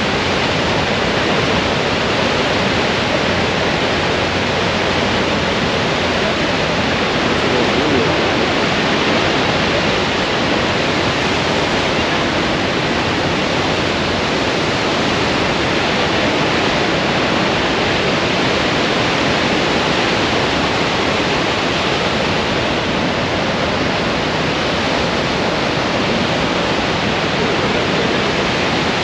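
Steady, loud rush of a large waterfall: Niagara's American Falls pouring over its brink, heard up close.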